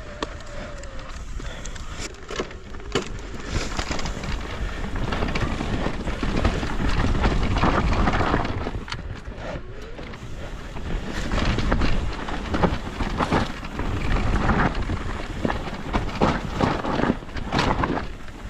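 Wind rushing over a GoPro action camera's microphone while a mountain bike rolls fast down a dirt trail, with the tyres crunching and frequent knocks and rattles from the bike over rough ground. It gets louder in two stretches as speed picks up.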